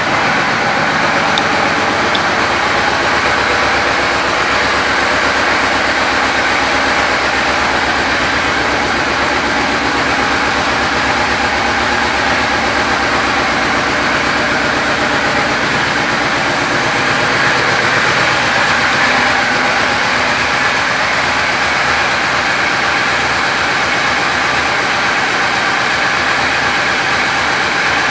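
2000 Yamaha Royal Star Venture LTD's V-four engine idling steadily.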